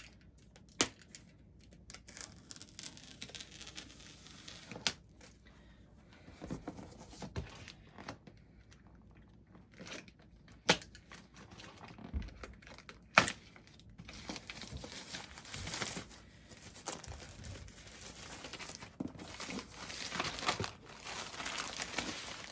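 Plastic wrap being cut with a knife and torn off a cardboard box: tearing and crinkling with scattered sharp snaps, the crinkling growing denser and more continuous in the last several seconds.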